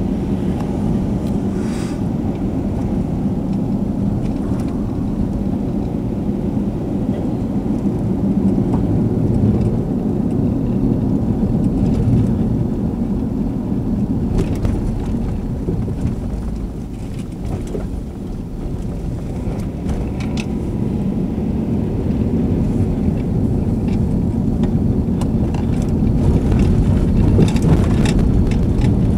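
Car engine and tyre noise heard from inside the cabin while driving, a steady low rumble with a few brief faint knocks.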